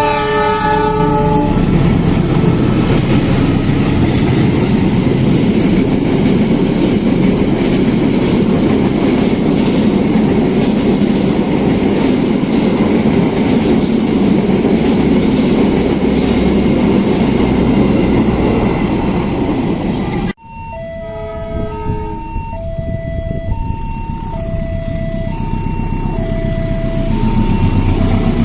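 A train passing over the level crossing: a horn fades out in the first second or so, then a loud steady rumble of wheels on rails runs for about 20 seconds. After an abrupt cut, the crossing's electronic warning signal sounds in two alternating tones about once a second, and road vehicle engines rise underneath near the end.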